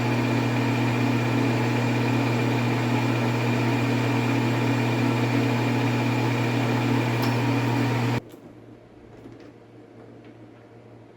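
Geared-head metal lathe running steadily while taking a very light, fine-feed cut on 4140 steel, a steady hum with a deep drone. The hum cuts off suddenly about eight seconds in, leaving only a few faint clicks.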